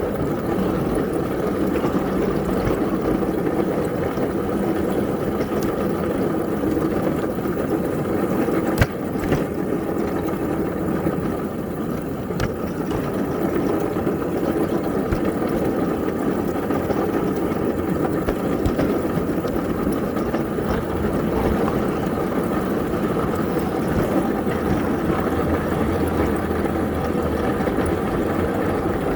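Small backyard-railroad locomotive engine running steadily, with a single sharp click about nine seconds in.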